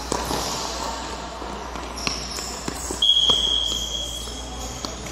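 Futsal ball being kicked and thudding on a hard indoor court, with scattered knocks and short high squeaks in a reverberant hall. A louder, steady high tone lasting just under a second comes about three seconds in.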